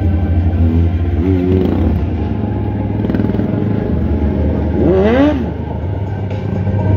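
Stunt motorcycle and quad bike engines over a steady low hum. One short rev comes about a second in, and a sharp rev rises and falls about five seconds in as the quad bike spins close by.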